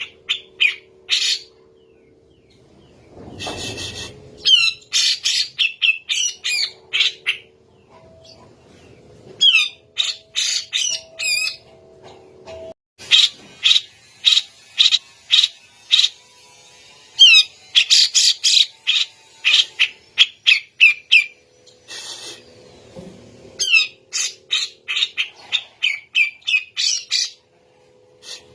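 Grey-cheeked bulbul (cucak jenggot) calling in fast runs of loud, sharp, chattering notes, several seconds at a time with short pauses between, as used in a bird-training recording. A faint steady low hum lies under it.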